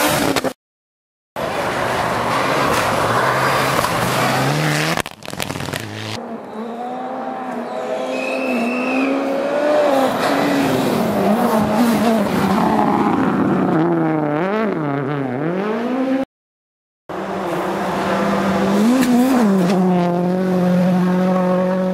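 Rally cars at speed on snow-covered gravel stages, engines revving hard with the pitch repeatedly climbing and dropping through gear changes and lifts as the cars pass. The sound is broken by two short silent gaps, one about half a second in and one about sixteen seconds in, and near the end an engine holds a steady high note.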